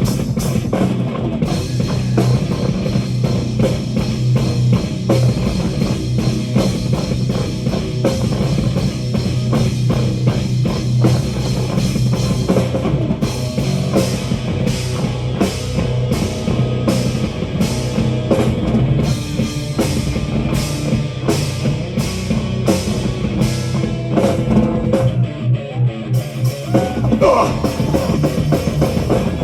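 Live metal band playing an instrumental breakdown, with no vocals: heavy distorted guitars, bass and a pounding drum kit. The band drops out briefly about 26 seconds in, then comes back in.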